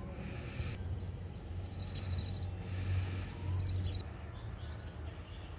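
Outdoor pond-side ambience: a small animal chirping in several short, rapid, high-pitched trills, one every second or two, over a steady low rumble.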